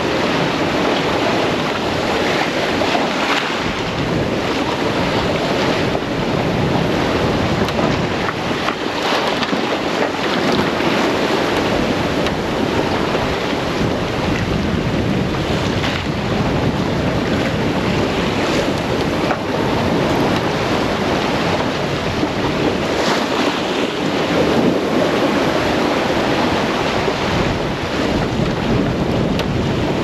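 Steady rush of wind and sea on a sailboat underway offshore: wind buffeting the microphone over waves and water rushing past the hull, with no engine heard.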